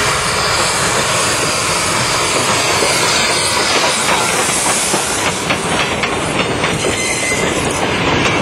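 New Hope & Ivyland #40, a 2-8-0 Consolidation steam locomotive, charging past at close range with loud stack exhaust and steam hiss. From about halfway the wheels of its tender and freight cars click over the rail joints as the train rolls by.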